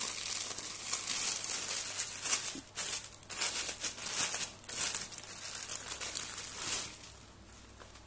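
Thin clear plastic bag crinkling and rustling in irregular bursts as it is pulled open and peeled off folded cloth pants, dying down about seven seconds in.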